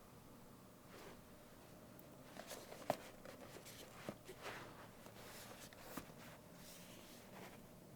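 Faint handling sounds in a small room: soft rustles and light taps, with one sharper click about three seconds in.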